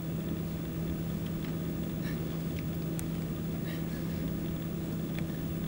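A steady low hum with a few faint small ticks and rustles.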